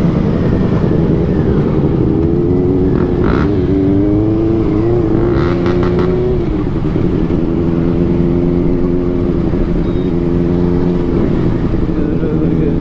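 Motorcycle engines in a slow group ride, heard from on the bike. The engine note rises and falls as the throttle is opened and eased off, then settles into a steady note.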